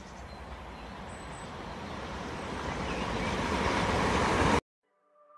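Intro riser sound effect: a rushing noise that swells steadily louder for about four and a half seconds and then cuts off suddenly. Soft ambient guitar music fades in near the end.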